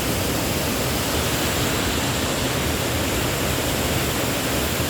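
Waterfall crashing into a pool: a steady, loud rush of falling water.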